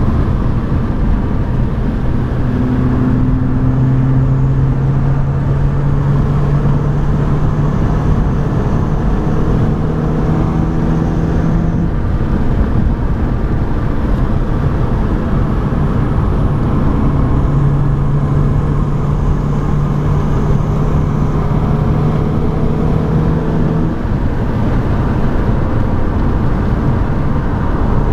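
BMW 118i's engine running at speed on track, heard from inside the cabin over road and wind noise. Its note holds steady for several seconds at a time and changes about halfway through and again near the end.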